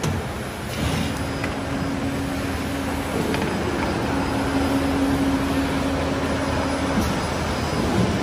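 Automatic two-blade shaftless paper core cutting machine running as it loads and feeds a paper tube. A steady motor hum starts about a second in and stops near the end, over the machine's steady running noise.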